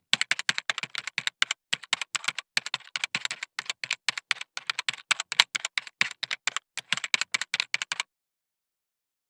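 Keys clicking rapidly and unevenly, about six clicks a second with a few brief pauses, stopping about eight seconds in.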